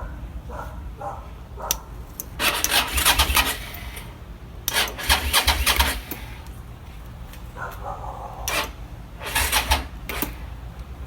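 Vehicle engine cranking on its electric starter in three short bursts of about a second each, each stopping without the engine catching: a crank-but-no-start with a new battery fitted.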